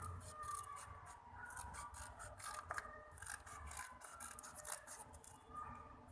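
Scissors snipping through paper: a run of short, irregular cuts.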